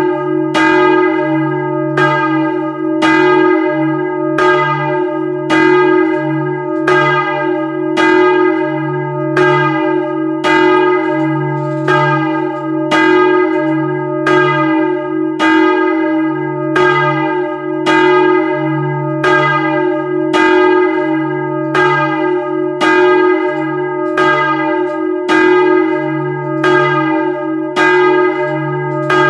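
A large swinging church bell, heard close up in the belfry, rung for the prayer bell (Gebetläuten). Its clapper strikes steadily about once a second, and a deep continuous hum carries on between the strokes.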